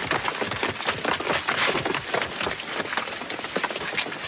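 Dense, continuous clatter of many small knocks and scrapes from people scrambling over loose stone rubble.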